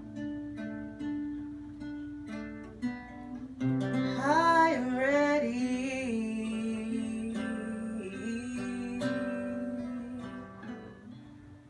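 Acoustic guitar playing repeated plucked notes. About four seconds in a wordless vocal joins, gliding up and down in pitch and then holding long notes, and it fades near the end.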